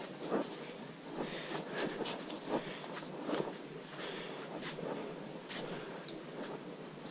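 Footsteps on a soft, muddy dirt trail, one soft step roughly every second at a walking pace, with light rustling of clothing and gear.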